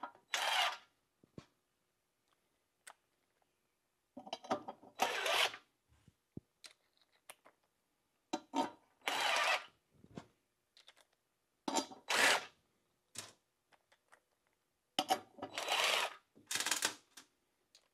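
Cordless drill with a socket spinning nuts down onto the lid bolts of a windmill diaphragm compressor, in short runs of a second or so, six or seven times.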